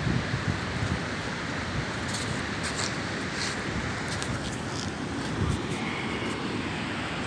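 Wind buffeting the microphone over a steady rushing background noise, with a few faint ticks between about two and three and a half seconds in.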